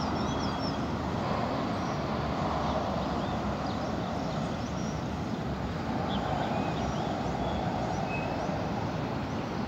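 Steady outdoor rumble that holds level throughout, with small birds chirping high above it.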